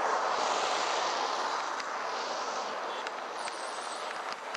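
Steady rushing wind and road noise on the microphone of a camera moving fast, with no clear engine note, slowly getting quieter, and a few faint ticks in the second half.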